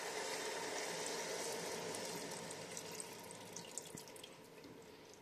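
Tamarind water poured from a glass bowl into a pressure cooker of fried carrot slices: a steady trickle and splash that thins out and fades toward the end as the bowl empties.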